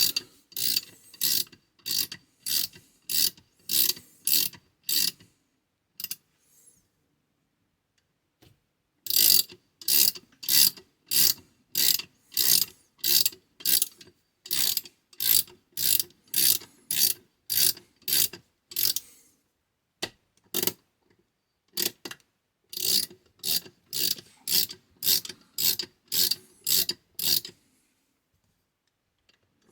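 Quick reverse ratchet wrench being swung back and forth, its pawl clicking in short strokes about two a second, in three runs with pauses between.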